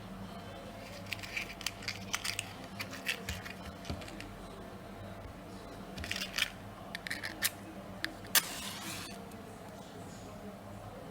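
Scattered small clicks and rustles over a steady low electrical hum, with one sharp click followed by a short hiss about eight seconds in.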